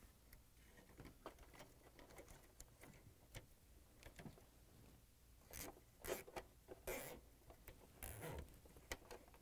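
Faint handling sounds as a plastic zip tie is wrapped around a bundle of wires and fastened: scattered small clicks and rustles, a little louder in short clusters past the middle and near the end.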